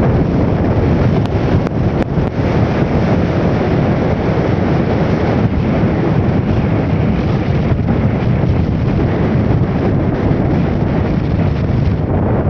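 Steady wind buffeting the microphone of a camera on a moving motorbike, a loud even rush with no breaks.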